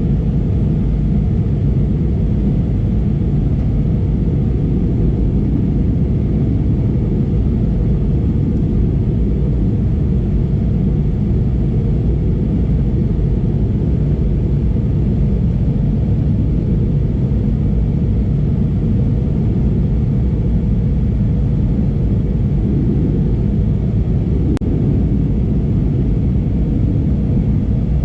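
Steady low rumble inside the cabin of an Airbus A320neo airliner in flight: engine and airflow noise.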